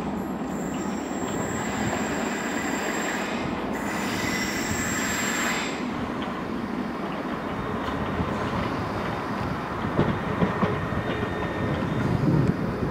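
London Underground Piccadilly line 1973 Stock tube train running round curved track, its wheels squealing with a high whine over a steady rumble for the first half. Later the squeal fades, and the wheels click over rail joints near the end.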